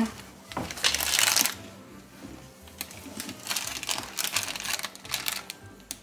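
Crinkling of a plastic dog-treat bag being handled, in two stretches of crackly rustling, the second longer.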